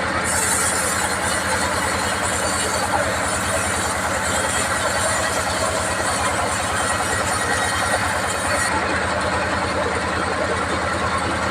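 Sawmill bandsaw machinery running with a steady low engine hum, and a high hiss from the blade that stops about three-quarters of the way through.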